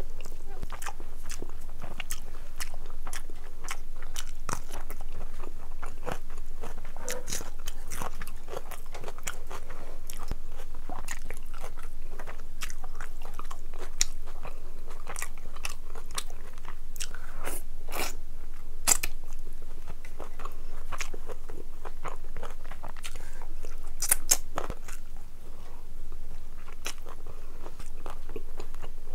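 Close-miked chewing with many short, sharp, wet mouth clicks: a person eating rice and meat curry by hand.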